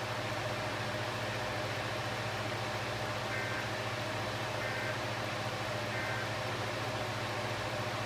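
Steady hiss and low hum from a TV broadcasting an Emergency Alert System alert. Near the middle come three short, faint two-tone data chirps, a little over a second apart: the EAS end-of-message bursts that close the alert.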